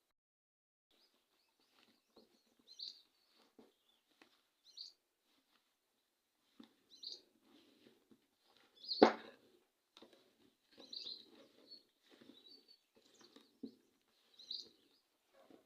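Hands kneading and pressing stiff biscuit dough in a bowl: soft, irregular squishing and rubbing, with one sharp knock about nine seconds in. Short chirps, like birds, come and go in the background.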